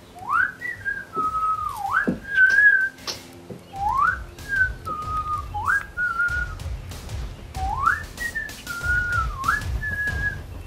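A man whistling a slow tune. Each of about four phrases opens with a quick upward swoop and then holds and wavers. Under it are light knocks of hard-soled shoes stepping on a wooden deck.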